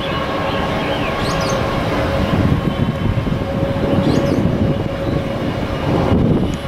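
Engines of taxiing jet airliners running at low power: a steady rumble with a held whine over it.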